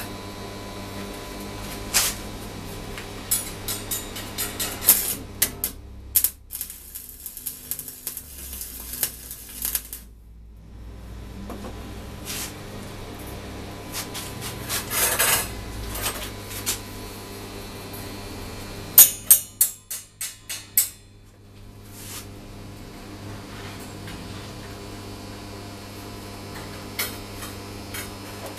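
Steel rods and a welded steel-rod frame clinking and knocking against a steel bench top as they are handled, with a quick run of sharp metallic taps about two-thirds of the way through. A steady electrical hum runs underneath.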